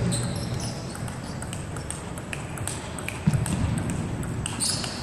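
Table tennis rally: the ball clicking off the bats and the table in quick, uneven strokes, with a dull thud about three seconds in.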